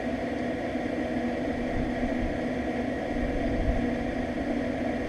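Steady mechanical hum of a running Mojack Pitmaster Q3 pellet grill, its draft fan blowing air into the firepot as the temperature is turned up to 325.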